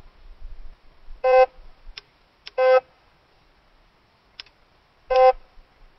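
Electronic bite alarm beeping three separate times, each a short single-pitched tone, with a few sharp clicks between: the alarm signalling line moving on a rod set on its rest, the sign of a bite.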